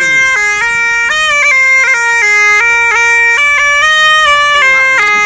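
A reed wind instrument plays a loud, continuous melody that moves in quick steps between held notes.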